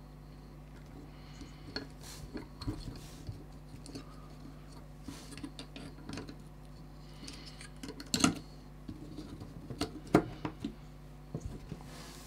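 Small clicks, taps and rustles of hands handling a carbon-fibre quadcopter frame and working thin receiver antenna wires under it, with sharper knocks about eight and ten seconds in. A low steady hum runs underneath.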